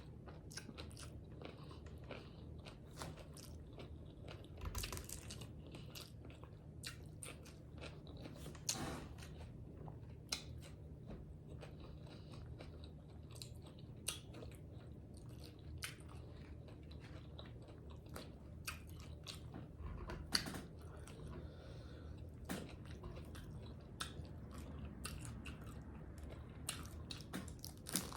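A person chewing and biting into crunchy hard-shell tacos close to the microphone, with scattered crisp crunches and smacks over a faint steady hum.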